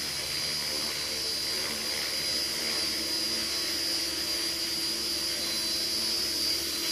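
JR Forza 450 electric RC helicopter hovering low: a steady high whine from the motor and drivetrain over the even whir of the rotor blades.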